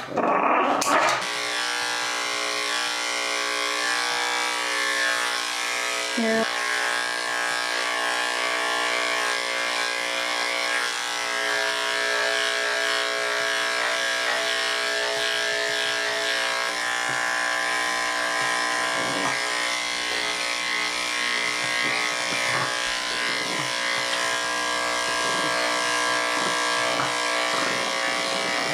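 Electric dog-grooming clippers start about a second in, then run with a steady hum while shaving a Pekingese's matted coat.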